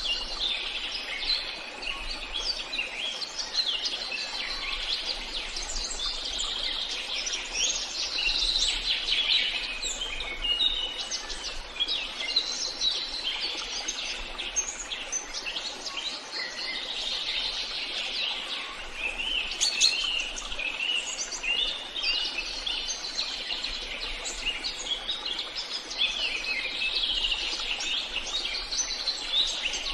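Forest birdsong: several birds singing and chirping at once, a dense chorus of quick chirps and short trills that runs without a break.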